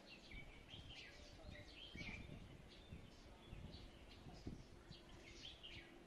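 Faint chirps and short calls of small songbirds, scattered throughout and busier in the first two seconds and near the end, over a low background rumble.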